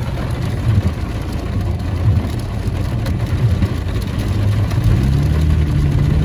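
Car cabin noise while driving on a wet highway: a steady low engine and tyre rumble with the hiss of road water, growing slightly louder near the end.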